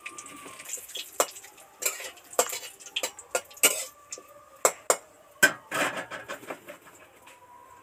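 Metal spatula stirring in a kadai and knocking against it and a steel pot lid: a run of irregular sharp clinks. A tempering of dried red chilli and bay leaves is frying in the oil.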